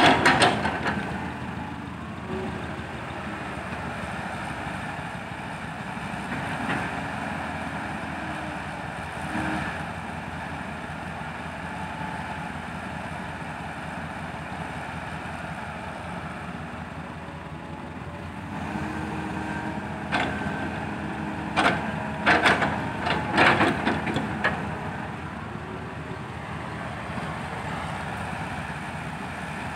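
Diesel dump truck engines running steadily. A few seconds before the end, a quick run of short, sharp, loud bursts stands out above them.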